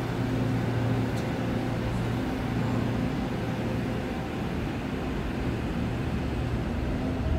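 Steady low hum over a broad rumble of railway station platform background noise, with no distinct event standing out.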